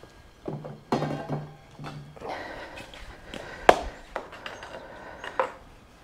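Handling and rummaging noises as objects are picked up and moved: several knocks and clunks, with one sharp clack about two-thirds of the way through.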